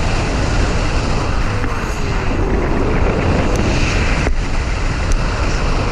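Steady rush of wind buffeting an action camera's microphone during a paraglider flight, with a short break about four seconds in.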